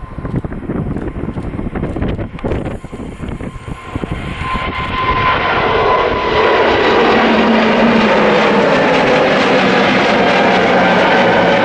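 Jet airliner engines roaring as a narrow-body jet approaches, with the sound building from about four seconds in to a loud, steady roar with whining fan tones. Before that there is only gusty wind on the microphone.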